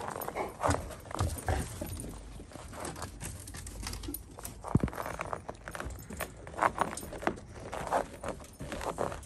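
Footsteps crunching down snow-covered concrete steps, an irregular series of soft steps.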